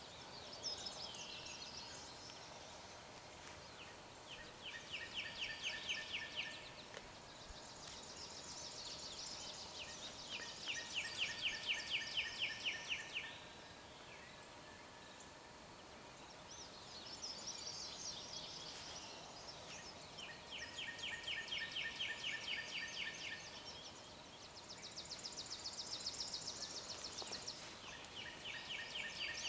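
Songbirds singing in the woods: a trill of rapid, even notes, two to three seconds long, repeated about five times, alternating with a higher, quicker warbling song.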